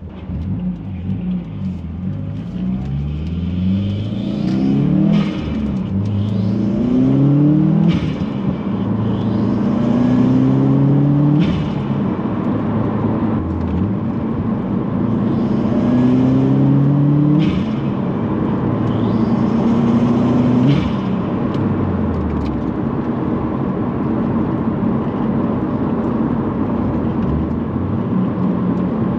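2018 Subaru WRX's turbocharged 2.0-litre flat-four (FA20) accelerating through several gears, its pitch rising and then falling at each of about five upshifts, with a hiss around the shifts, then settling into a steady cruise for the last few seconds. The pronounced turbo and intake sound is what the owner credits to a GrimmSpeed cast aluminum turbo inlet.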